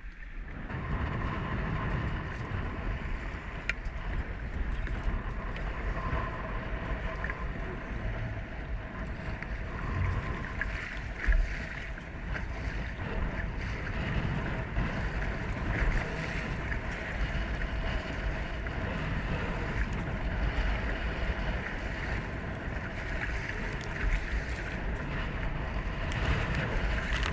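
Wind buffeting the microphone over water splashing and slapping against a kayak's hull as it moves through choppy water, with a faint steady hum underneath and one brief louder splash or knock about eleven seconds in.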